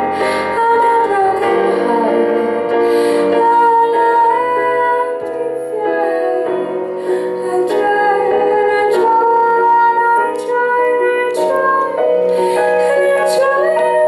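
A woman singing lead in a live pop performance, holding long notes over sustained keyboard chords.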